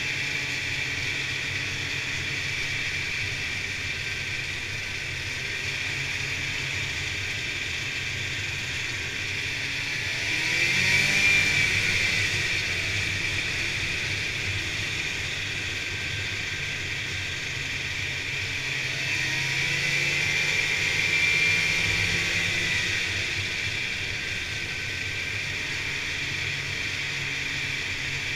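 Snowmobile running steadily along a trail, heard from the rider's seat. Its engine note rises twice as it speeds up, about a third of the way in and again about two-thirds in.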